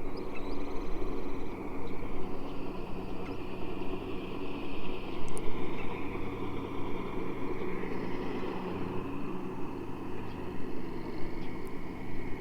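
A steady low rumbling hum, with faint high chirping above it.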